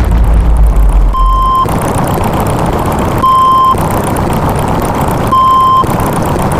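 Vehicle reversing alarm beeping three times, evenly, about two seconds apart, over a running engine's rumble that is heaviest in the first second and a half.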